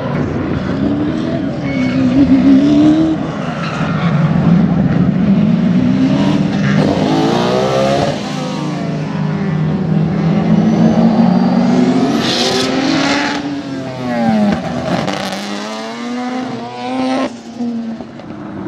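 Engines of several Sports Sedan race cars passing one after another. Their pitch rises and falls repeatedly as they accelerate and back off through the corners.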